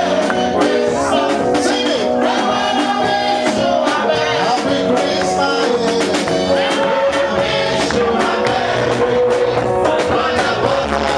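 Upbeat music with a steady beat and singing voices.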